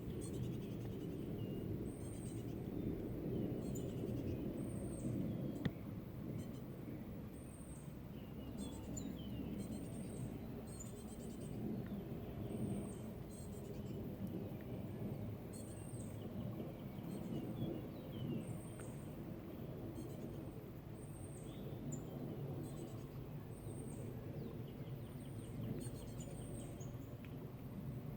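Woodland ambience: a steady low rush of noise, with a short, high chirp repeating every second or two and faint, scattered bird calls.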